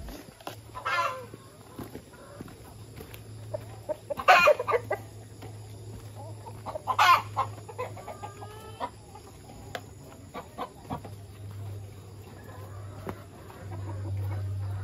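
Chickens calling: loud, short calls about one, four and seven seconds in, with fainter calls between, over a steady low hum.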